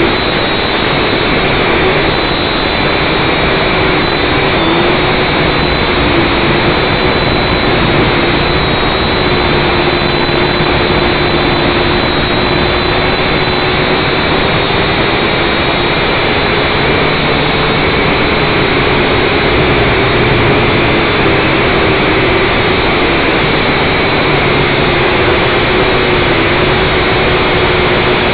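FPV drone's electric motors and propellers running in flight, picked up by its onboard camera as a loud, steady whine and rush with a hum that wavers slightly in pitch as the throttle changes.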